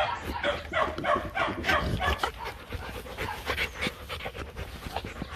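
Young Rottweiler panting close up, quick breaths about three a second, easing off about halfway through.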